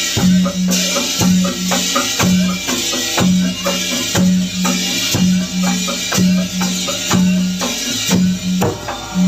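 Dongkrek percussion music: drums struck on a steady beat of about two strokes a second, over a low ringing tone repeated in pairs roughly once a second.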